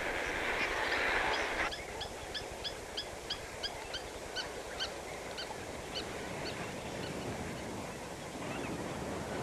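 A flock of flamingos calling with goose-like honks. A dense rushing noise cuts off abruptly nearly two seconds in. A run of short rising honks follows at about three a second, then fades to a background murmur of the flock.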